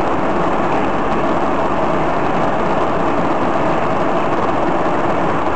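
Steady vehicle noise: engine and road rumble of a moving vehicle.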